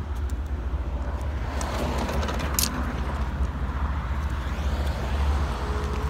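Road traffic with a steady low rumble. A motor vehicle passes, swelling for a few seconds and then fading.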